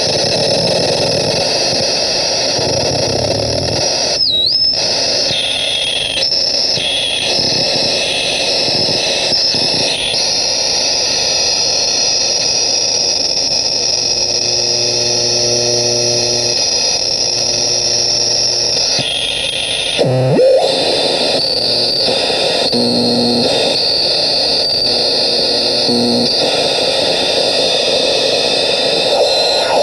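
Homemade crystal-radio noise synth putting out a dense, steady hiss and static, played by hand. Tones switch in and out over the noise, and twice the pitch swoops down and back briefly.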